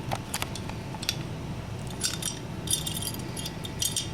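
Hand crimpers snipping at the rim of a dish: a few short, sharp metallic clicks in small clusters.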